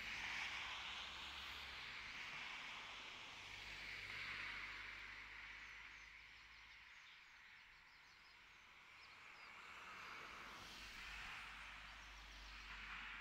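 Faint outdoor ambience: a soft rush that swells and fades every few seconds, with a few faint bird chirps about halfway through.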